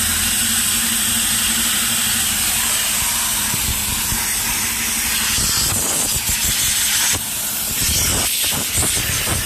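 Compressed air hissing steadily out of a truck's Wabco air brake system, with some low knocks in the second half.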